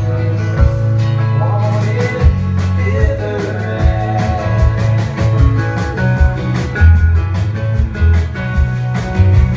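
Live folk-rock band playing: acoustic and electric guitars over a drum kit, with a singer's voice coming in about one and a half seconds in and fading out before the halfway mark.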